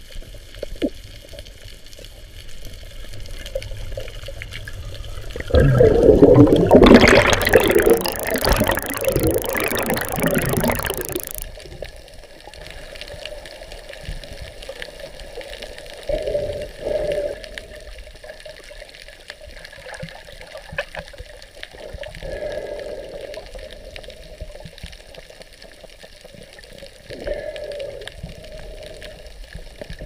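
Water sounds as heard underwater: a low steady wash, with a loud rush of water lasting about five seconds from around six seconds in, then a quieter wash with a few brief swells.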